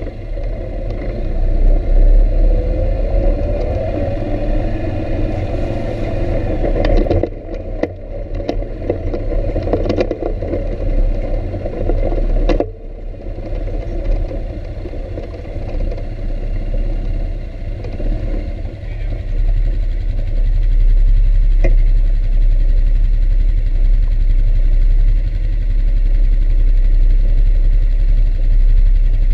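ATV engine running under way on a rough trail, revving up early and easing off, with a few sharp knocks from bumps. It settles to a steady low-rev run in the second half, with a heavy low rumble on the microphone.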